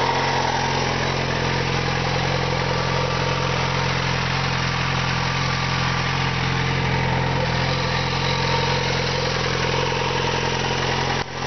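Yamaha XJ6 Diversion's 600 cc inline-four engine idling steadily through its stock exhaust, with no revving.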